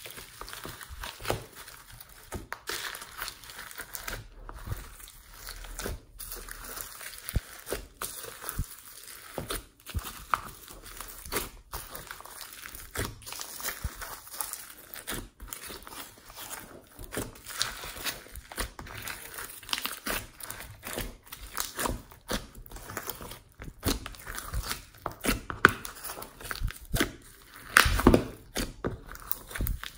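Glossy slime being squeezed, folded and stirred by hand with foam beads mixed through it: a steady run of irregular wet crackles, clicks and squelches, with louder crackling near the end.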